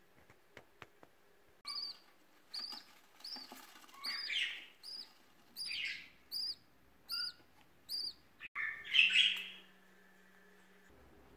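A small bird chirping: a run of short, arched chirps repeated about every three-quarters of a second, mixed with a few harsher calls, the loudest near the end.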